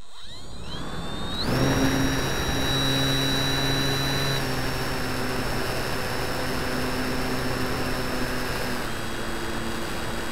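Model Tiger Moth biplane's motor and propeller spinning up with a quickly rising whine, then running steadily at high power through the takeoff and climb, heard from a camera mounted on the model with a rush of airflow. The pitch drops a little about four seconds in and again near the end as the throttle eases.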